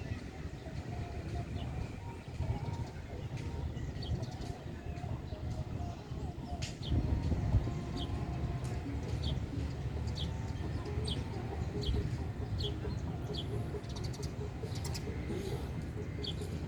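Road traffic rumbling steadily, louder for a moment about seven seconds in as a vehicle passes. From about eight seconds in, a small bird gives short, high chirps, repeated roughly every second.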